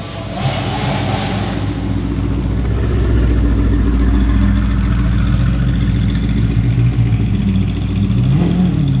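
Mercedes-AMG GT R's twin-turbo V8 with a Frequency Intelligent (Fi) aftermarket exhaust idling with a steady low rumble. Near the end there is one short rev that rises and falls.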